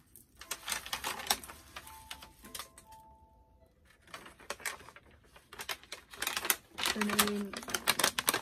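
Plastic shopping bag and foil toy packaging crinkling and rustling as they are handled, in quick irregular crackles that ease off briefly in the middle. A short low hum comes near the end.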